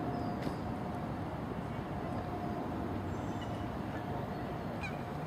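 Steady outdoor background rumble with a faint, constant hum running through it, and a few faint, short high chirps about five seconds in.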